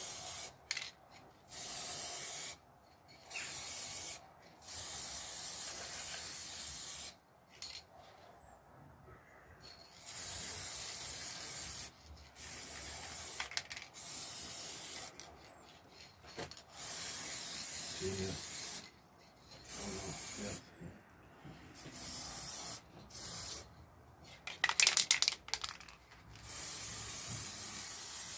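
Aerosol rattle can of black paint spraying in repeated short bursts of hiss, stopping and starting as a motorcycle engine is given its first coat. Near the end there is a brief burst of sharp rattling, the loudest sound.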